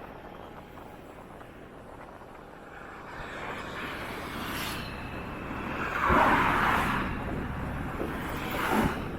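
Road traffic passing, growing louder from about three seconds in, with one vehicle passing close about six seconds in and another near the end.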